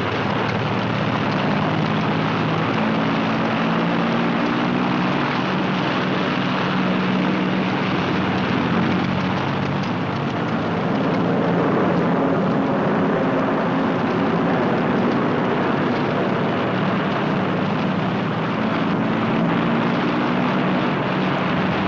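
Avro Lancaster four-engined bomber's propeller engines droning steadily as it takes off.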